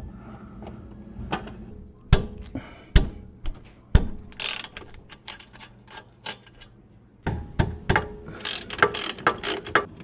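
Hand ratchet and metal tools working the rear brake caliper bolts: a few sharp metal knocks in the first half, then a quick run of ratcheting clicks near the end as the loosened bolts are turned out.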